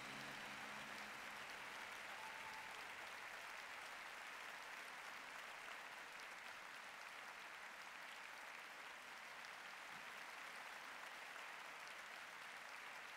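Faint, steady rushing noise with no tone or rhythm.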